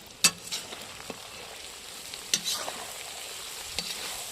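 Carrots frying in hot rendered fat-tail lard in a cast-iron kazan: a steady sizzle, with a few sharp scrapes and knocks of a utensil stirring them, about a quarter second in, just over two seconds in and near the end.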